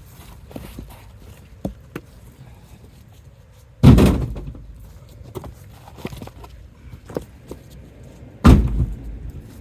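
Two heavy thuds about four and a half seconds apart, firewood logs thrown into a truck bed, each with a short low ringing decay. Small knocks and clicks from handling wood fall between them.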